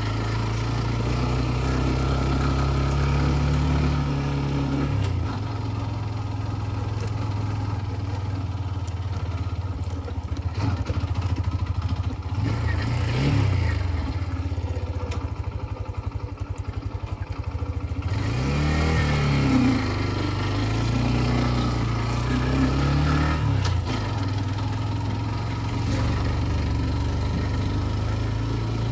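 Single-cylinder engine of a TVS Ntorq 125 scooter running under way. Its pitch rises and falls several times as the throttle is opened and eased.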